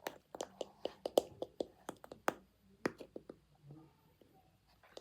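A measuring scoop tapping and clicking against a flour container and bowl while flour is scooped out, in quick irregular taps with a few sharper knocks.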